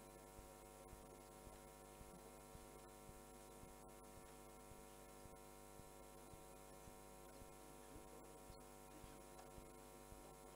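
Near silence: a faint, steady electrical hum with a faint regular pulsing underneath.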